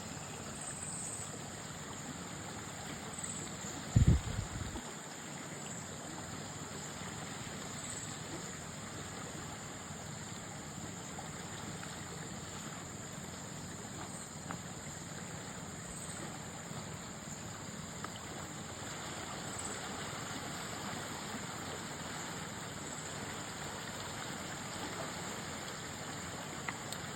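Steady rush of flowing water, like a stream or river running, with one loud, low thump about four seconds in.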